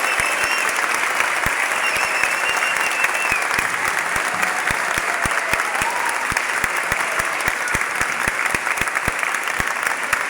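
Audience applauding, a dense steady patter of many hands clapping, with a thin high tone held over it for the first three seconds or so.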